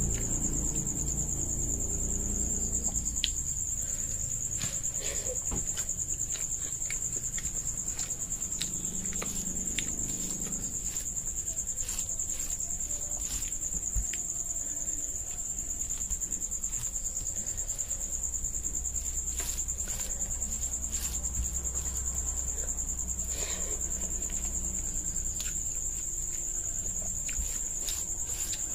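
Eating rice and chicken curry by hand: fingers mixing rice on a plate and chewing, heard as scattered soft clicks, over a steady high-pitched trill.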